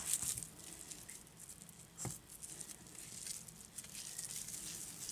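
Faint pattering from a kitchen sink tap left dripping, mixed with the soft sound of hands scooping raw ground-meat mixture from a stainless steel bowl; one sharper tick about two seconds in.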